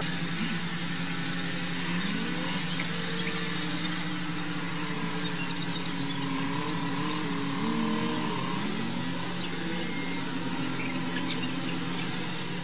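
Street traffic on a wet road picked up by a CCTV camera's microphone: a steady hiss and a low hum, with faint wavering pitched sounds over them.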